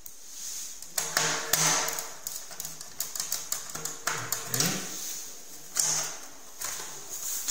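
Plastic case of a BCM50 phone-system unit knocking and clattering against a tabletop as it is handled and turned over, a series of irregular sharp knocks starting about a second in.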